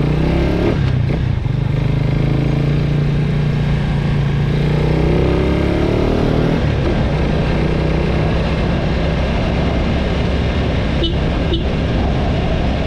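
Motorcycle engine running as the bike pulls away and rides along, its pitch rising and falling partway through.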